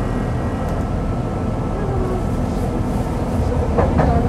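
Tram rolling along forest track: a steady rumble of wheels on rail and running gear, with a few sharper clacks near the end.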